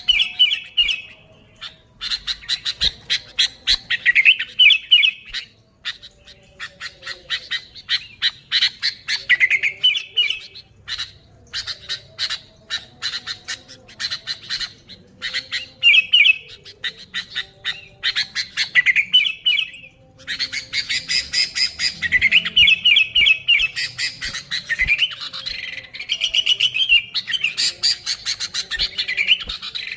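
Sooty-headed bulbuls calling busily: rapid, sharp chattering notes mixed with short bubbling, warbling phrases, with a few brief pauses.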